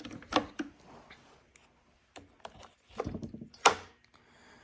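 A few knocks and clicks from handling the chainsaw, in two clusters: just after the start and again about three seconds in.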